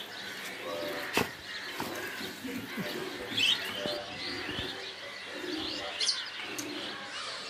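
Birds calling, with short high chirps a few times and lower cooing calls. A sharp click about a second in.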